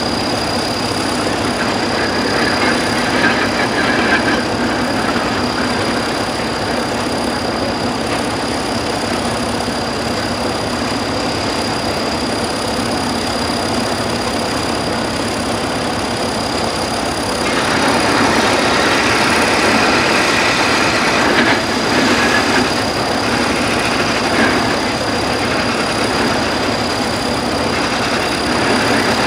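Small vertical-boiler steam shovel working, its steam engine running with a steady, dense mechanical noise that grows louder for several seconds a little past the middle as it swings and digs.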